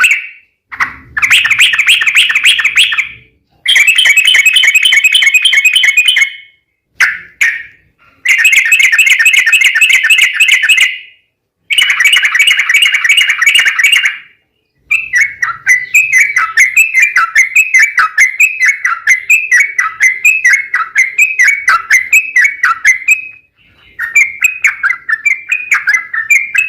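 Yellow-vented bulbul (trucuk) singing loud, rapid chattering phrases a couple of seconds long, separated by short pauses. About halfway through it breaks into a long run of quick repeated notes.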